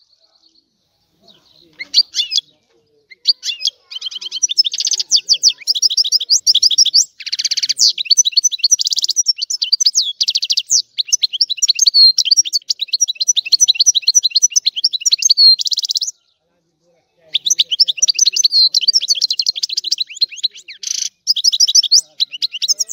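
European goldfinch singing: a fast, high twittering song of trills and buzzy notes. It starts in short phrases, then runs on nearly without break, with a pause of about a second two-thirds of the way through.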